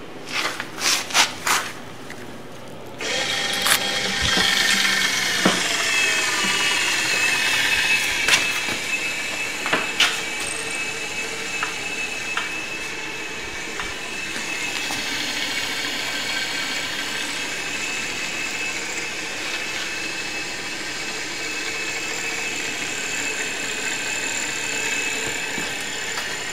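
Battery-powered electric motor driving the hoist's heavy gearbox, starting about three seconds in and then running steadily with a whine, with a few knocks from the mechanism. A few short clicks come just before it starts.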